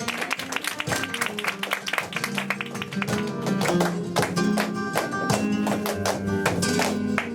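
Flamenco guitar playing a sevillanas interlude between sung verses, with many sharp percussive hits over it.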